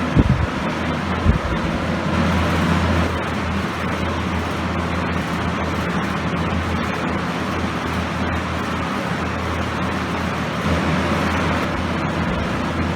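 Galaxy (Lasko) Model 3714 20-inch box fan with a plastic Marco motor, running on high speed: a steady rush of air over a constant low motor hum. Two brief knocks come within the first second and a half.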